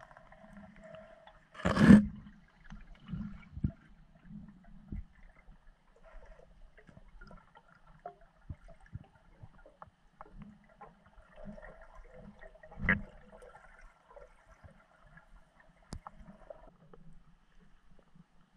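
Underwater ambience picked up by a submerged camera: faint gurgling water with scattered small clicks and knocks, and two sharp, louder knocks, one about two seconds in and one later near the thirteen-second mark.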